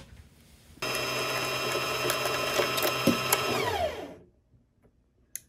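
Sewing machine motor running a seam for about three seconds with a steady hum, then falling in pitch as it slows to a stop. A sharp click just before it starts and another near the end.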